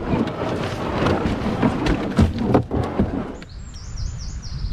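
Wind rumbling on the microphone with water splashing as the canoe is paddled. About three and a half seconds in this gives way to a bird singing a quick run of high, falling chirps.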